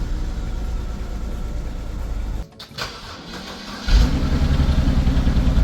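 2011 BMW 328i's inline-six engine running rough with a misfire on cylinder 1, cutting out briefly about two and a half seconds in. From about four seconds in it runs louder with an uneven, pulsing beat.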